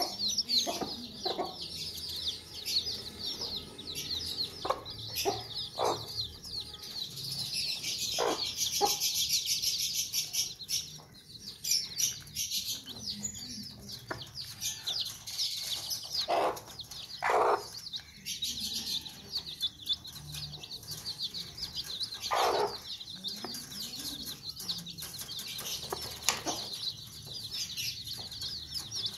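Chicks peeping in a steady run of short, high-pitched chirps, while the mother hen gives a few low clucks now and then.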